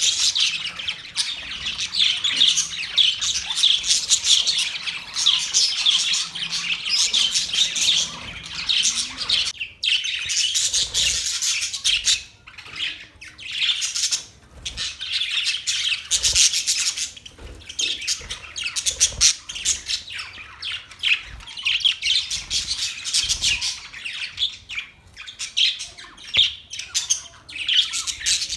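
Budgerigars chattering and warbling, a dense run of rapid chirps and squawky calls with a short lull about ten seconds in.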